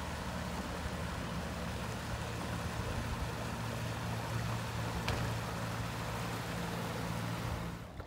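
Outboard motor running at a steady speed, with a wash of water noise over it; the sound cuts off abruptly near the end.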